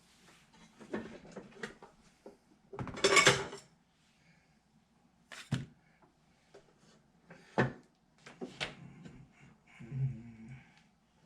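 Computer hardware being handled during a PC build: a string of light clicks and knocks of parts being moved and fitted, with a louder noisy scrape-like stretch about three seconds in.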